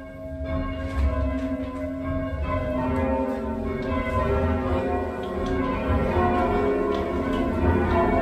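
Chew Magna's ring of eight church bells, including two restored Bilbie bells with newly designed clappers, rung full circle from the ropes in English change-ringing style. A continuous run of bell strikes one after another, each tone hanging on and overlapping the next, heard from the ringing chamber beneath the bells.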